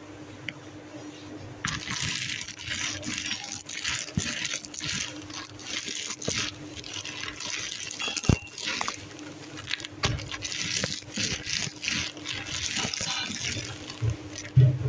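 Flamin' Hot Cheetos being crushed by hand in their plastic snack bag: irregular crinkling of the bag and crunching of the puffs, starting about two seconds in.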